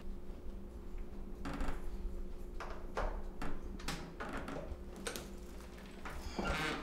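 Scattered clicks and knocks from a door lock and hand tools being handled, about half a dozen short sharp sounds, over a steady low room hum.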